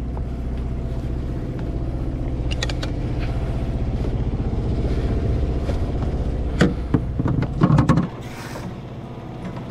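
Sailboat's inboard engine running steadily while the sails are hoisted, with short clattering clicks of rigging hardware about two and a half seconds in and again from about six and a half to eight seconds. About eight seconds in the engine sound drops away, leaving soft background music.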